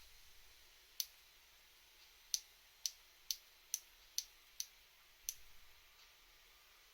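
Shimano BL-M9020 hydraulic brake lever clicking as it is worked: eight sharp, high clicks, spaced about half a second apart through the middle. The click is the lever's known clicking-noise fault.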